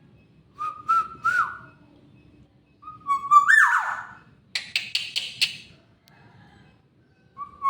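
Oriole (kepodang) calling: a few short fluty whistled notes, then a whistle that swoops up and falls away about three seconds in, followed by a quick run of five or six harsh, raspy notes.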